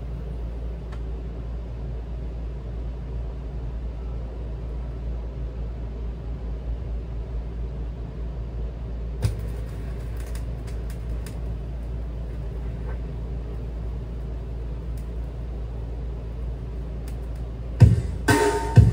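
Steady low hum through a turntable's speakers, with a few light clicks of the tonearm being handled about halfway through. Near the end, guitar music from the record starts playing loudly and abruptly.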